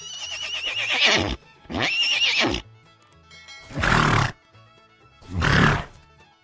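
Horse whinnying twice, each a high quavering neigh that falls away, then two short breathy noisy bursts, over background music.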